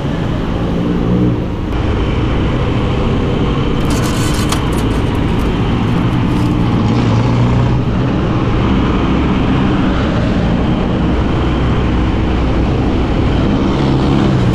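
Small motorcycle engine, the Honda TMX125 single-cylinder four-stroke, running steadily as the bike is ridden, with road and traffic noise around it. The sound changes abruptly about two seconds in.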